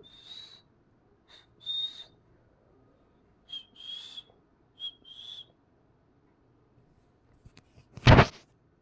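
Cockatiel whistling: four repeated two-note calls, each a short high note followed by a longer one, about every second and a half. About eight seconds in comes a single loud, short burst of noise.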